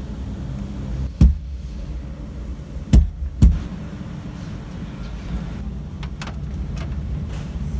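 Three dull thumps, one about a second in and two close together around three seconds, with a few light clicks over a steady low rumble: a hand knocking and pressing a quarter window glass and its rubber seal into the cabin frame while fitting it.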